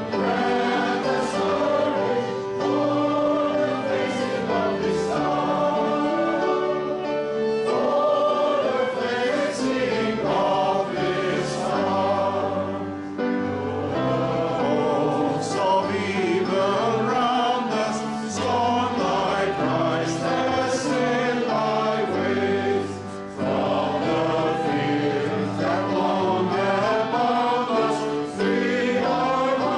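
A choir singing a hymn with instrumental accompaniment.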